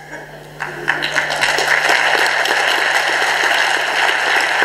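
Audience applauding: clapping starts about half a second in and quickly builds to a steady, dense spatter.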